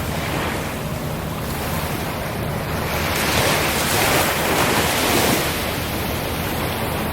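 Sea surf washing ashore, with one wave swelling into a louder rush about three seconds in and easing off a couple of seconds later, over a steady low rumble of wind on the microphone.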